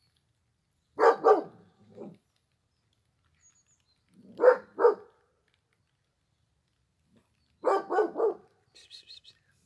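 A dog barking in short groups: two barks about a second in, two more around four and a half seconds, and three quick barks near the end.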